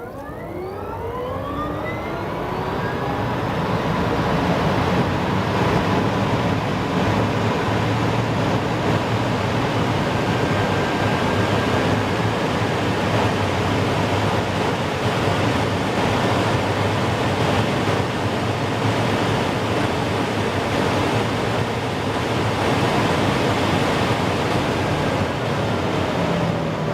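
Rimac Nevera electric hypercar accelerating hard: its electric motor whine sweeps quickly up in pitch over the first few seconds, then gives way to a steady loud rush of wind and road noise at very high speed. Near the end a falling whine begins as it slows.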